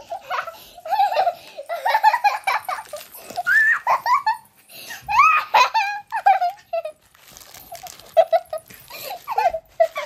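Two young children giggling and laughing in high voices, over and over, while they play-wrestle.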